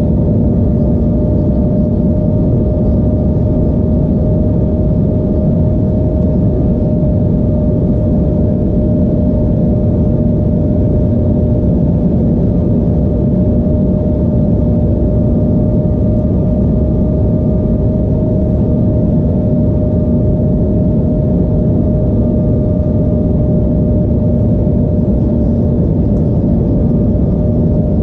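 Cabin noise inside an Embraer E175 airliner during descent: a steady rush of airflow under the hum of its GE CF34-8E turbofan engines, with an unchanging held tone and no change in level.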